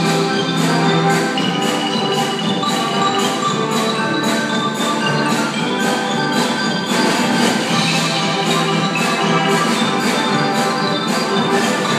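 Brass band playing, with xylophones and other mallet percussion carrying quick struck notes over held brass chords.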